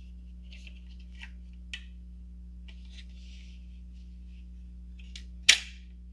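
Small handling clicks and rustles over a steady electrical hum, with one sharp knock about five and a half seconds in.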